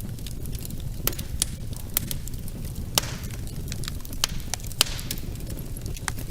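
Wood fire burning in a fireplace: a steady low rumble of flames with irregular sharp crackles and pops, a few of them louder than the rest.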